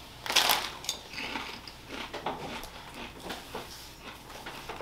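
Potato chips crunching as two people bite into them and chew, a run of irregular crisp crackles, the loudest about half a second in.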